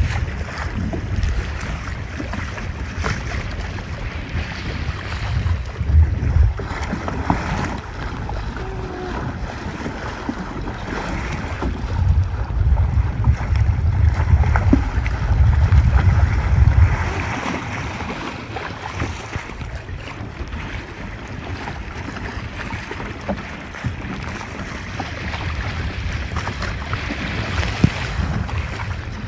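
Strong wind buffeting the microphone in gusts, over the rush of water and waves.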